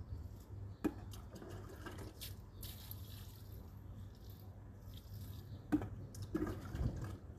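Water poured from a small plastic scoop onto soil, splashing and dripping, with a couple of sharp clicks.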